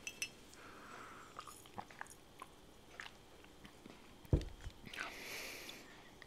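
Close-miked chewing and biting of food, with scattered small clicks, one low thump a little over four seconds in and a short breathy hiss just after.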